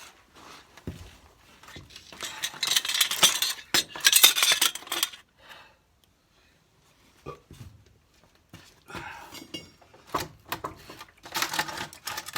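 Loose metal tools and parts clinking and clattering as they are handled and shifted, in two bouts: one starting about two seconds in, another starting past the middle and running to the end.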